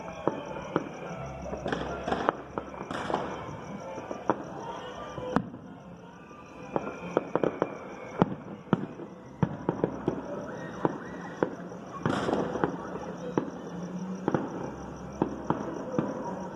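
Celebratory 9mm gunfire and fireworks: many sharp bangs and pops at irregular intervals, some in quick clusters, over music from a distant sound system.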